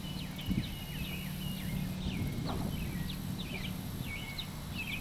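Several songbirds chirping and whistling in quick, short notes, over a steady low hum, with a soft low bump about half a second in.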